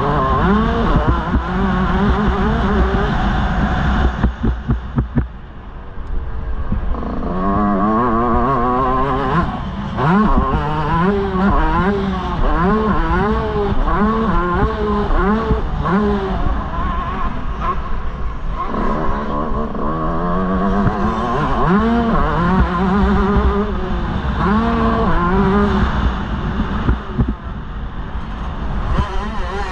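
125cc two-stroke motocross bike engine, heard from onboard, revving hard and dropping again and again as the rider accelerates, shifts and rolls off the throttle on the track. There is a brief off-throttle dip with a rapid flutter about five seconds in.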